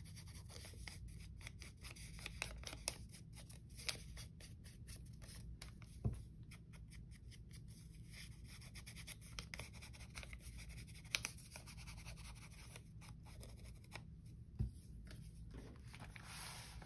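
Ink being dabbed and rubbed onto the torn edges of a thin strip of paper: a run of light scratchy taps and rubs, with a few louder taps.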